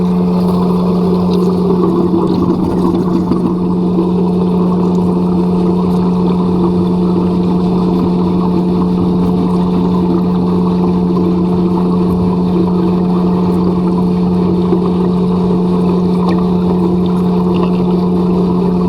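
A steady, loud low drone holding one constant pitch, like a motor running at even speed.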